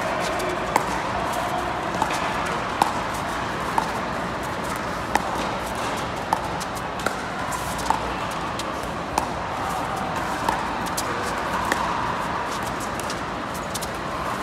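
Pickleball paddles striking a hard plastic ball back and forth in a long rally at the net, a sharp pop about once a second, about ten hits in all, over the steady murmur of an indoor hall.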